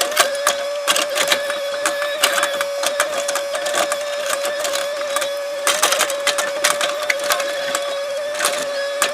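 Excavator running at work: a steady high-pitched whine holds one pitch while frequent clattering knocks and rattles come through it.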